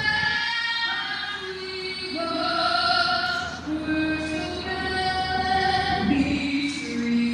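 Music with a sung melody, voices holding long notes that step from pitch to pitch.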